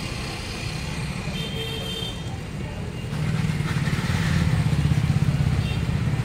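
A motorcycle engine running close by, getting louder about three seconds in, over street traffic noise.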